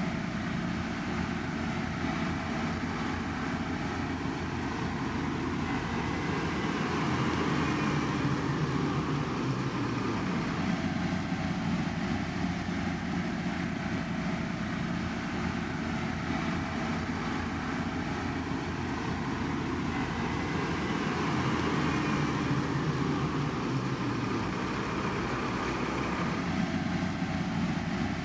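Heavy road-construction machinery running steadily: a continuous diesel engine drone with no sharp events, swelling slightly a couple of times.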